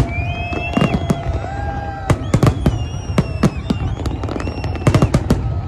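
Fireworks bursting in a rapid, irregular string of loud bangs, several close together near the end. Held, slightly gliding whistle-like tones sound in between.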